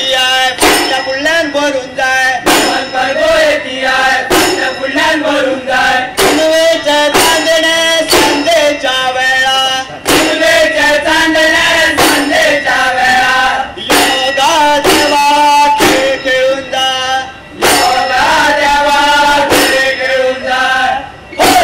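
Group of men singing a traditional folk song together, accompanied by a shoulder-slung barrel drum struck in a steady rhythm, with frequent sharp clanging strokes among the beats.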